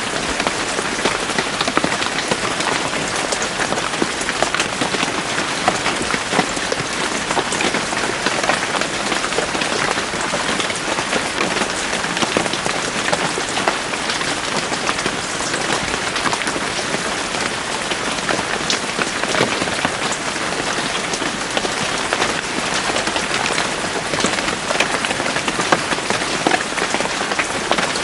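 Steady rain falling in a forest, a dense even hiss of rain with many individual drops pattering on leaves and surfaces.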